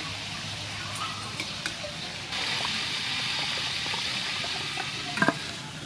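Slab of skin-on pork deep-frying in hot oil in a pot, the oil sizzling steadily; the sizzle gets louder about two seconds in. A couple of sharp knocks come near the end.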